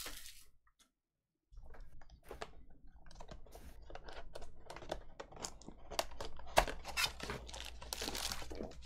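A cardboard trading-card box is opened and its foil card packs are pulled out, giving a run of crackles, crinkles and sharp clicks. One snap, about two-thirds of the way through, is louder than the rest. The sound drops out completely for about a second near the start.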